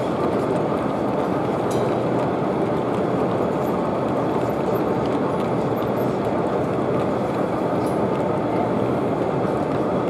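Model train of maroon passenger coaches running steadily along the track, a continuous rolling noise of small wheels on rail, over the steady background hubbub of a busy hall.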